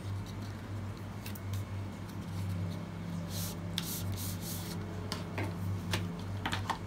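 Paperboard watch-band box being handled and its inner tray slid out of the sleeve: faint rubbing and sliding with a few light taps, over a steady low hum.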